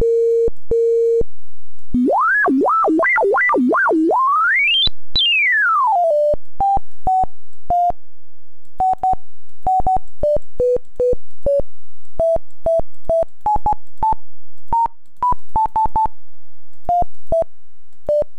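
Simple electronic beep tones from the Macintosh 128K Guided Tour's on-screen piano, emulated in Mini vMac and played with mouse clicks. A few buzzy beeps open it. Next a warbling tone slides up and down, climbs very high and falls back, and then single short pure notes are picked out one at a time as a melody.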